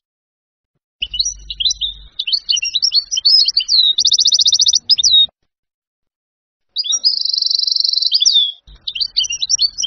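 European goldfinch song in the Levantine (Syrian) style: high twittering phrases with fast, even trills, in two bouts. Each bout starts after about a second of silence and ends abruptly.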